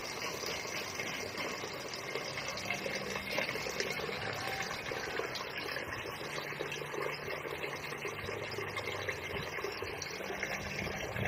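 A thin stream of water running steadily from the tap of a plastic water container into an aluminium cooking pot, as the pot is filled to rinse rice.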